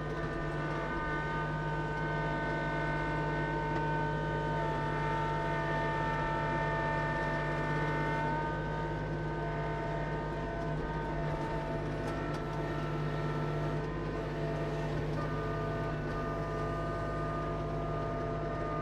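Kubota LX2610 compact tractor's three-cylinder diesel running steadily while the front loader's hydraulics work a root rake grapple, closing it on a rock and lifting. A higher whine over the engine note shifts pitch a few times as the hydraulics are worked.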